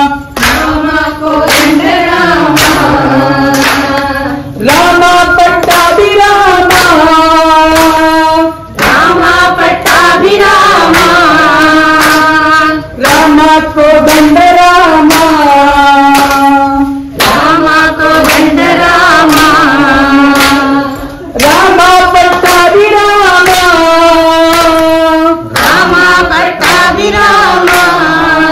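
A devotional Rama bhajan sung in repeated phrases about four seconds long, each ending in a brief dip, over a regular beat.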